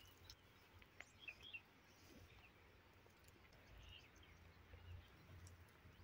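Near silence: faint outdoor ambience with a low rumble and a few faint, short bird chirps.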